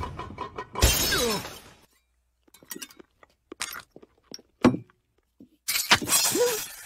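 A cartoon sound effect of a large ceramic vase smashing, a sharp crash about a second in with a second or so of breaking and clattering after it. Then faint scattered clicks and clinks, and a louder noisy burst near the end.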